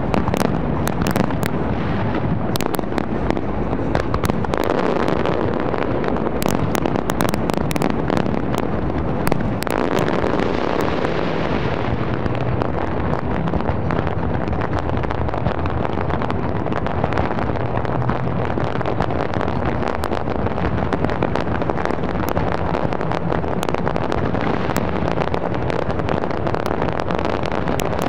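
Large fireworks display: many shells bursting in quick succession, sharp bangs and crackling over a constant rumble. The sharp cracks come thickest in the first dozen seconds, then the sound settles into a denser, steadier crackle.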